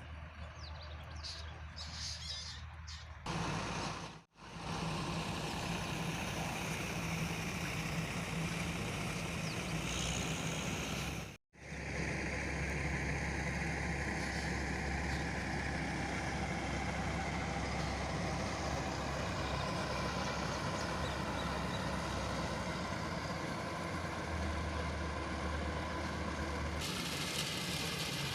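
A tractor engine runs steadily with a deep hum. The sound cuts out abruptly twice, and its tone shifts a few times where separate recordings are joined.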